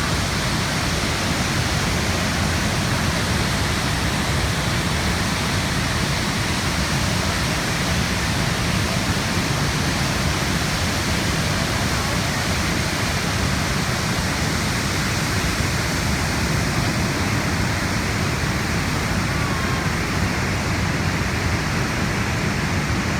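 Niagara Falls: a huge mass of water pouring over the falls in a steady, unbroken rush that is heaviest in the deep low end.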